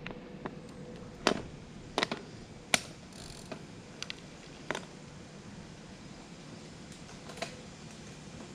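A handful of sharp clicks and knocks at irregular intervals, most of them in the first half, over a faint steady background.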